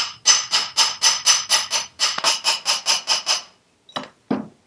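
Small hammer tapping a steel drift in quick, even strokes, about five a second, each tap ringing metallically, to drive a stuck gudgeon pin out of a Citroën 2CV piston. After a short pause there are two more single taps near the end.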